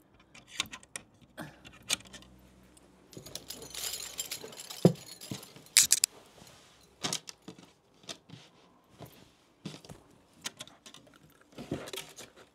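Objects being rummaged through and shoved into a crammed bedside-cabinet drawer: rustling and clinking, with scattered knocks and two sharper knocks about five and six seconds in.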